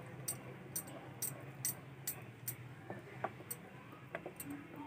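Spoon stirring thick kheer in a metal pot, making light clicks about twice a second as it knocks the pot, over a faint steady low hum.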